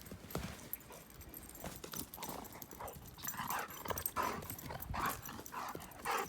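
A dog making a run of short, soft whimpering sounds while retrieving a thrown stick, over light clicks and rustling.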